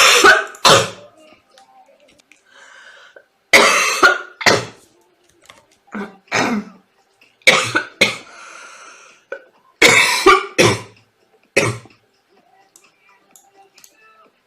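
A sick girl coughing in about six fits, each of one to three sharp coughs, with short pauses between the fits.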